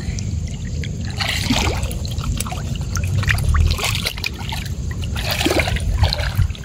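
Water sloshing and trickling in a plastic tub as a raw whole chicken is handled and cut in it, with three short splashy bursts. A steady low rumble runs underneath.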